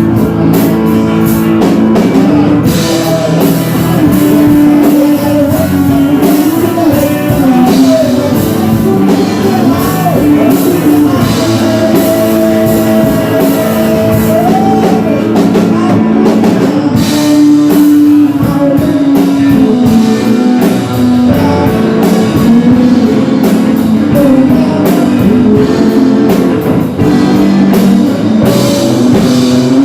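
Loud rock music with guitar and a drum kit, a held melody line gliding over a steady beat.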